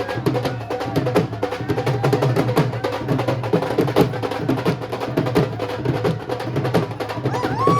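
Music driven by fast, dense drumming, with many sharp strokes a second over a steady low tone. Near the end a pitched tone glides up and holds.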